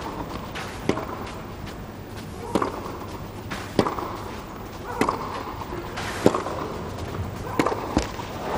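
Tennis rally on a clay court: rackets strike the ball back and forth, a sharp pock about every second and a quarter, with softer bounces of the ball between the hits.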